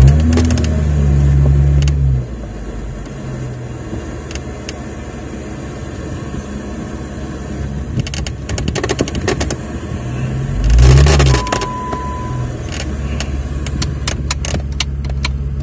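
Off-road vehicle's engine running as it drives slowly over sand, louder for the first two seconds, then settling to a lower drone, with scattered clicks and rattles. About eleven seconds in the engine briefly swells and falls again, and a short high tone sounds.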